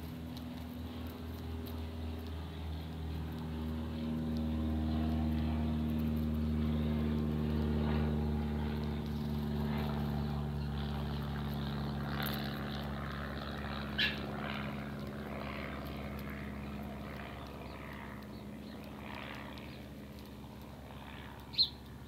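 A distant engine drone passes, swelling to its loudest about a third of the way in and fading away over the following ten seconds. House sparrows give two short chirps, one about two-thirds in and one just before the end, the second the loudest sound.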